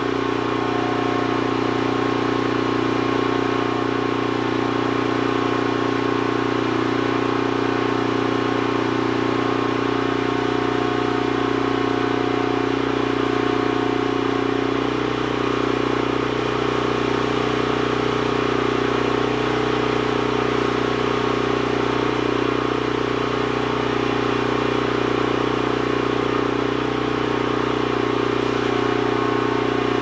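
Toro Dingo mini skidsteer's engine running steadily while its hydraulics drive a log splitter ram; the engine note changes about halfway through.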